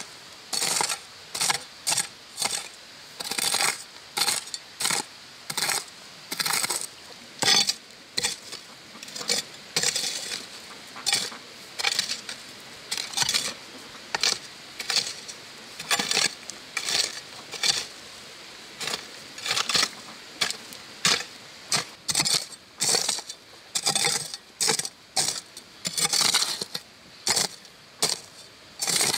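Metal hoe blade chopping into and scraping stony earth: a run of sharp metallic clinks and scrapes, about one or two a second, as the blade strikes soil and stones.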